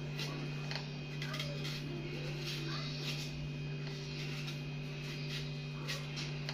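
Faint irregular scrapes and clicks of a kitchen knife peeling green bananas by hand, over a steady low hum.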